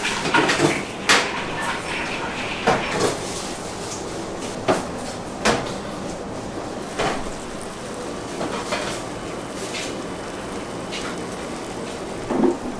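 Kitchen work clatter: irregular knocks and clicks of utensils, trays and containers being handled, over steady background noise.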